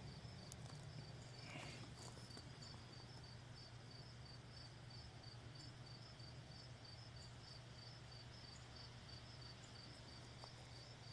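Near silence with faint insect chirping, high and regular, about two to three chirps a second, over a low steady hum.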